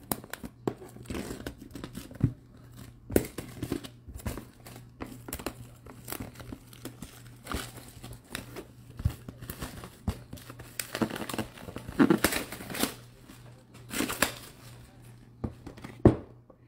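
Plastic wrapping crinkling and tearing, mixed with irregular knocks and scrapes of cardboard boxes being handled and set down, with a sharp knock near the end.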